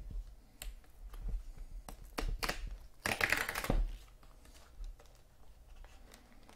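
Hands handling a cardboard trading-card box in a clear plastic sleeve: scattered clicks and taps, then a rustle lasting just under a second about halfway through.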